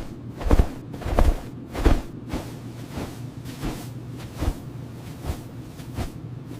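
Footsteps: a run of thuds at walking pace, heavier in the first two seconds and lighter after, over a low steady hum.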